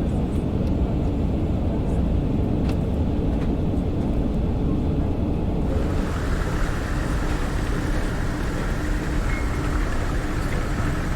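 Steady low rumble of a passenger vehicle's interior in motion. About halfway through, a brighter hiss suddenly joins it.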